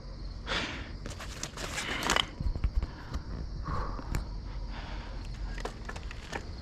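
Rustling and scraping with scattered clicks and a few low knocks, loudest about two seconds in: handling noise as the bike and gear are moved about after a roadside brake repair.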